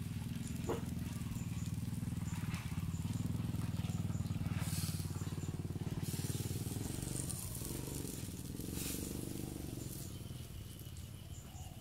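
A small engine running steadily at idle, a low pulsing hum that eases off near the end. Two brief rasping noises about 5 and 9 seconds in.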